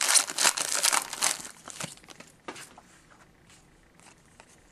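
A trading-card pack wrapper crinkling and tearing as the pack is ripped open, for about the first second and a half, followed by a few light scattered ticks.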